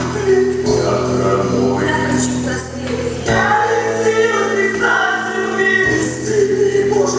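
Rock-opera band playing with a chorus of voices singing held notes over steady bass.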